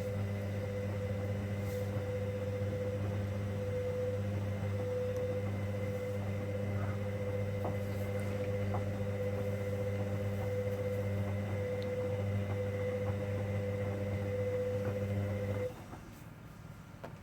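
Hoover Dynamic Next washing machine's motor turning the drum in one direction during the 90 °C cotton main wash: a steady hum with a higher whine. It stops shortly before the end, the pause between tumbles.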